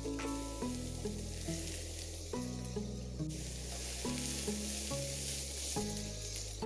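Food sizzling in hot oil in a pan, a steady frying hiss that grows louder about halfway through.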